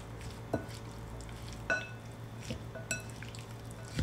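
Shredded carrots being mixed in a glass mixing bowl with a silicone spatula and chopsticks, the utensils clinking against the glass several times, a few of the clinks ringing clearly.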